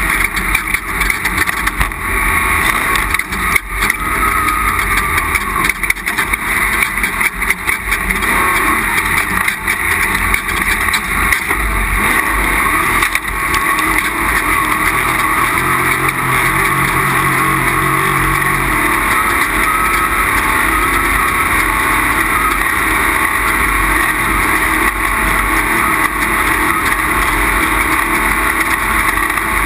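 Onboard sound of an off-road race vehicle running at speed: engine noise mixed with wind and rattling. Many sharp knocks and jolts in the first several seconds, then a steadier run.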